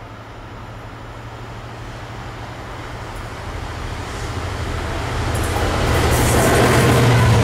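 Class 66 diesel-electric locomotive's two-stroke V12 engine droning steadily as it approaches, getting louder throughout. Wheel-on-rail noise from the locomotive and its container flat wagons builds over the last couple of seconds.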